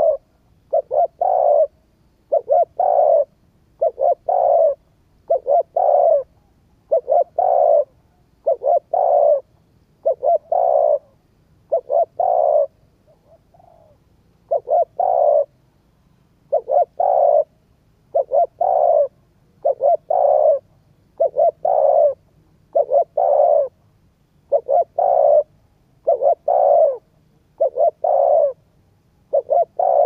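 Spotted dove cooing over and over: a short coo phrase about every second and a half, with one longer pause about halfway through.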